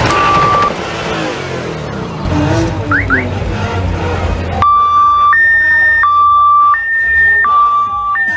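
Crowd noise and low engine rumble, then about halfway through a loud two-tone hi-lo siren starts, switching between a lower and a higher note roughly every 0.7 seconds.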